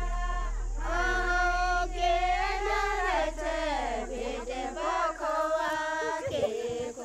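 Several voices singing together in a choir-like song, mostly long held notes that slide between pitches, starting about a second in. A low steady hum underneath fades out over the first six seconds.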